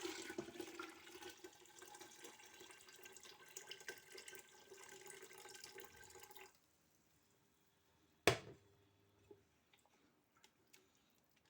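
Chicken foot broth being poured into a cooking pot, a steady splashing trickle that stops suddenly about six and a half seconds in. About two seconds later comes a single sharp knock, the loudest sound, followed by a few faint clicks.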